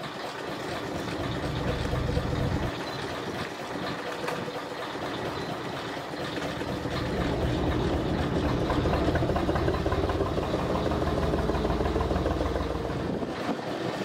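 A boat's engine running steadily, heard from on board: a low rumble with a steady hum, swelling in the second half and falling away near the end.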